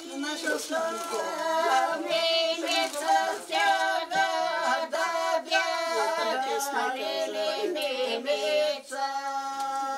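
A pair of women singing a Bulgarian folk song unaccompanied, in long held, ornamented notes. It is the ritual verse sung as a bunch is drawn from the vessel in the custom.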